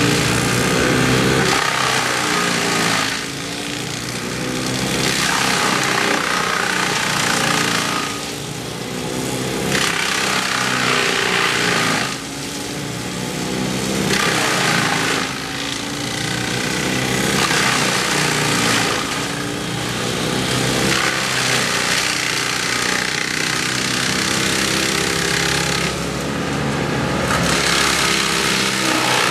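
Gas chainsaw running at high revs and cutting, easing off for a moment every few seconds before revving up again.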